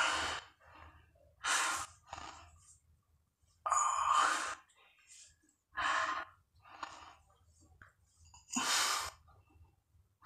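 A man's heavy, laboured breathing during a long set of push-ups: loud, rhythmic breaths about every one to two seconds, each push-up paced by a hard breath.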